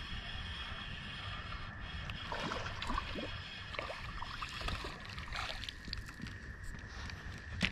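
A hooked white bass splashing at the water's surface as it is reeled in to the bank, a run of short splashes about two to five seconds in. A sharp click comes near the end.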